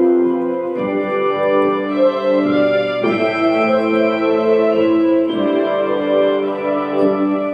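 Organ music: sustained chords held and changed every second or two.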